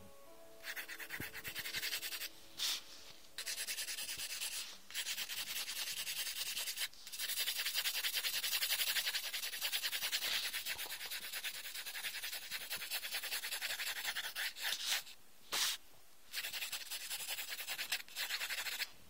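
Rapid back-and-forth strokes rubbing on sketchbook paper as a pencil drawing is shaded, in long runs broken by several short pauses.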